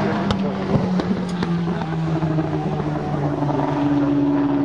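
Engines of Group A and Group C touring cars running past on the circuit. One engine note falls slightly in pitch, then another car's higher note builds near the end. A few sharp clicks sound in the first second and a half.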